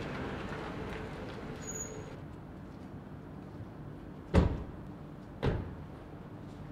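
A car pulls up and its engine noise dies away; then two car doors are slammed shut about a second apart, the first louder.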